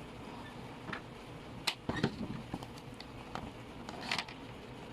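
Light clicks and scraping from plastic pieces being handled while they are joined with a plastic welder gun. There is a sharper click a little under two seconds in and a short rustle around four seconds in.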